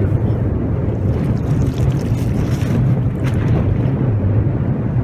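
Fishing boat's engine running steadily as a low hum, with wind buffeting the microphone.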